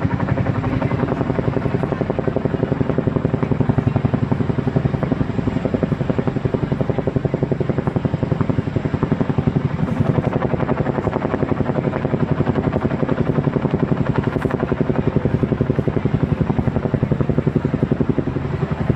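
Boeing CH-47 Chinook tandem-rotor helicopter hovering low overhead, its rotor blades beating in a loud, rapid, steady chop.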